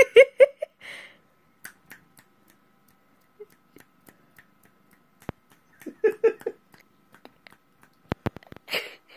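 A person laughing quietly in short bursts of rapid pulses: at the start, about six seconds in, and again near the end. A few sharp clicks come in between.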